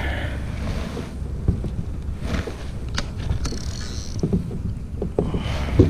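Wind rumbling on the microphone and water against a plastic kayak hull, with a few light clicks and knocks from handling the rod and tackle.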